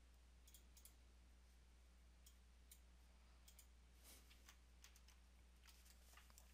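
Faint clicks of a computer mouse and keyboard, about a dozen scattered and irregular, over a low steady hum.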